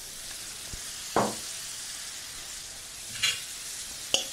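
Salmon strips and shallot sizzling steadily in butter and olive oil in a frying pan, browning lightly. A utensil knocks and scrapes against the pan about three times as it is stirred.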